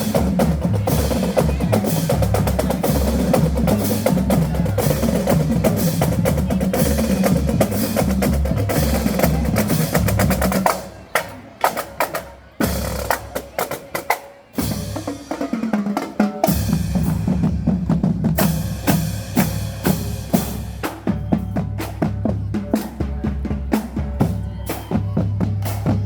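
Marching band drumline playing loud, rapid patterns on snare and bass drums. About ten seconds in, the playing thins to scattered separate hits for several seconds, then the full drumming resumes.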